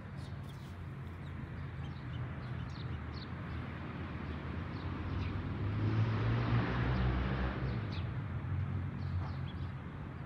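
Low, steady engine hum of a motor vehicle in the background, growing louder around the middle and then easing off, with short bird chirps scattered over it.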